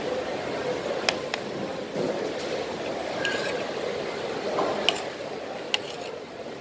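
A metal spoon clinking and scraping against a plate of rice, with half a dozen short sharp clicks scattered through, over the steady background din of a hawker centre.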